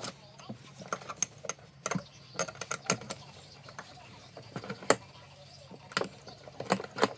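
Irregular metallic clicks and clinks, about a dozen spaced unevenly, from hand tools and small metal parts being handled during a door check repair.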